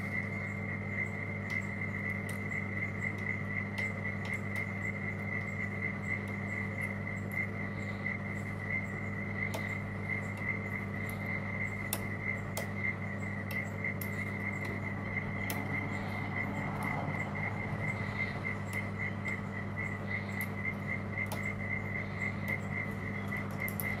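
An insect's steady high-pitched trill, pulsing several times a second, over a low steady hum, with faint small clicks of a lock pick being worked in a lock cylinder.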